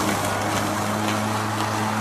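Greenworks 20-inch 12-amp corded electric lawn mower running, its motor giving a steady hum at a constant pitch over an even hiss.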